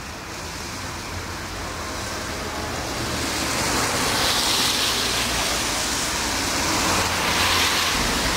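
Street traffic on a wet road: a steady hiss of tyres on wet asphalt that grows louder over the first few seconds and swells again near the end.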